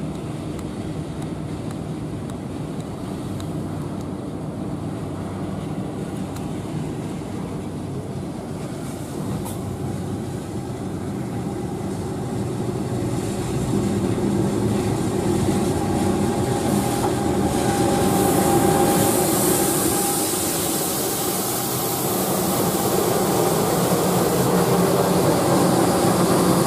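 A KAI CC206 GE diesel-electric locomotive hauling tank wagons runs in on the next track and draws alongside. Its engine drone and running noise grow steadily louder as it comes close, with a hiss building over the last several seconds.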